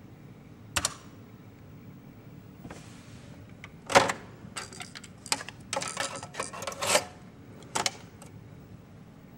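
Plastic clicks and clatter of a Panasonic portable cassette recorder being handled. A loud click about four seconds in is a key being pressed as the cassette door stands open. A run of clicks and rattles follows as a tape is put in and the door shut, then a double click of a key near the end. A short double click comes about a second in, before the recorder is handled.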